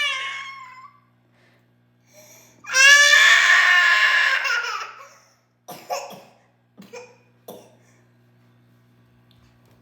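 A toddler crying: one long high wail starting about three seconds in, followed by a few short sobs.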